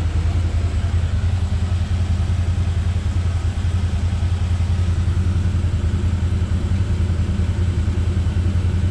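Can-Am Defender's Rotax V-twin engine idling, a steady low rumble with an even, rapid pulse and no revving.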